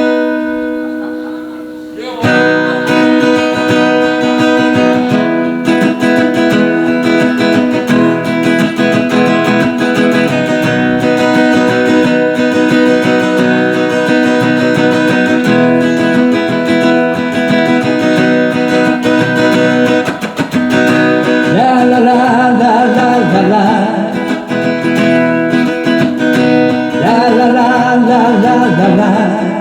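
Acoustic guitar playing an instrumental intro: a chord rings for about two seconds, then steady rhythmic strumming begins. Twice in the later part, a wavering melody line rises briefly over the strumming.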